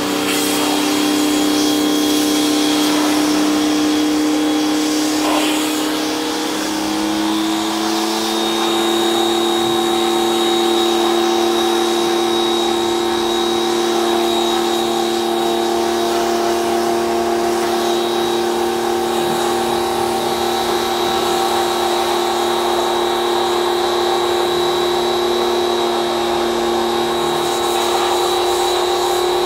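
Bosch Aquatak 130 electric pressure washer running steadily, a motor-and-pump whine over the hiss of the water spray. Its pitch steps up slightly about seven seconds in, then holds.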